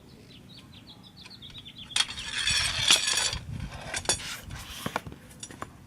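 Metal jack and tire-tool handling: a run of light, quick ticks, then about two seconds in a loud scraping rush with sharp metal clinks, followed by a few scattered clicks and knocks.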